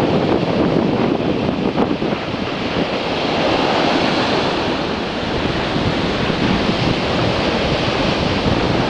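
Ocean surf breaking and washing up the beach continuously, with strong gusty wind buffeting the microphone.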